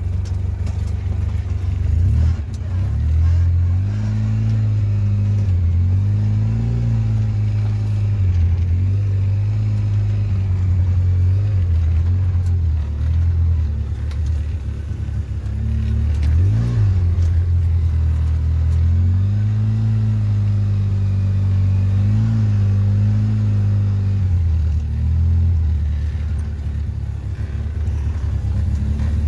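Quad (ATV) engine running at low speed, its pitch stepping up and down again and again with the throttle, with a quick rev about halfway through.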